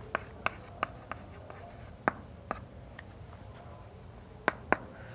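Chalk writing on a chalkboard: scattered sharp taps and short scratches as letters are chalked, with two louder taps close together near the end.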